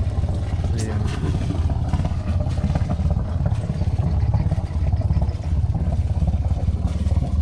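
A wooden fishing boat's inboard engine running with a steady, low, rapid chugging as the boat pulls away.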